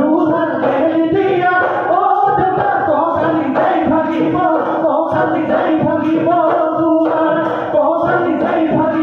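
Assamese husori: a group of men singing in chorus, with dhol drums beating a steady rhythm under the song.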